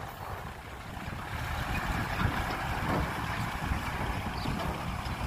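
Diesel engine of a Hyundai dump truck running, a steady, uneven low rumble.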